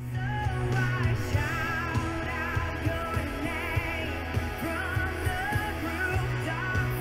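Recorded pop-rock music with heavy bass and a wavering lead melody, played through an NHL VL3400 column PA speaker system with its subwoofer. The song starts just as a short break between tracks ends.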